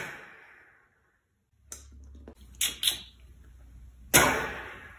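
A man imitating sniper rifle fire with his mouth, spitting out air with a hand cupped over his lips: two sharp shots, one at the start and one about four seconds in, each with a long fading echo-like tail. Three small mouth clicks come in between.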